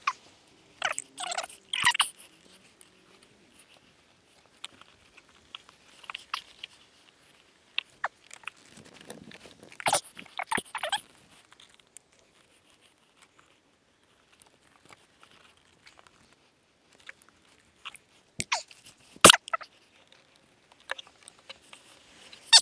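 Scattered clicks, knocks and light rattles of hand work on motorcycle parts and tools, with one sharper knock about three-quarters of the way through.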